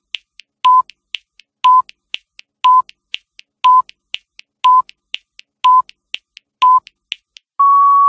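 Countdown-timer sound effect: a short electronic beep once a second with fainter ticks between the beeps, then one longer, slightly higher beep near the end as the count reaches zero.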